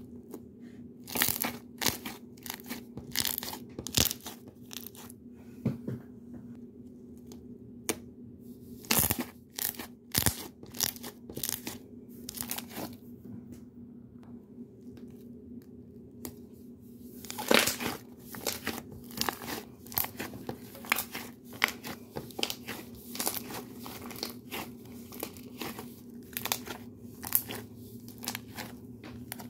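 Yellow slime being poked and squeezed by fingers, trapped air bubbles popping and crackling in quick runs of sharp little pops. The pops stop for a few seconds about halfway through, then come thick and fast again.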